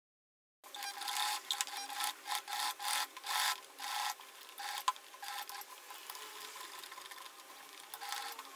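Electric sewing machine stitching through fabric, starting suddenly just under a second in and running in short spurts, then more quietly and steadily in the second half.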